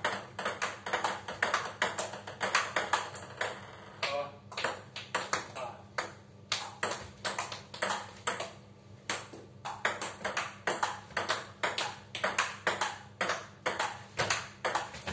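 Table tennis rally: a celluloid-type ping-pong ball clicking off the rackets and the table in a quick, even rhythm of about four hits a second, with a few short breaks.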